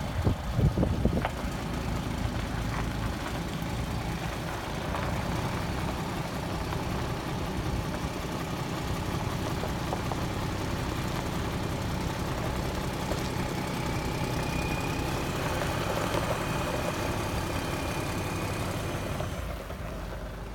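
Scania P94 truck's diesel engine idling steadily, with a couple of brief louder bursts in the first second.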